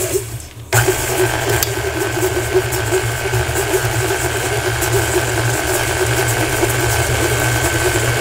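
Tilt-head stand mixer switched on less than a second in, its motor running steadily with a hum and a steady high whine as the flat beater creams softened butter and brown sugar in a steel bowl.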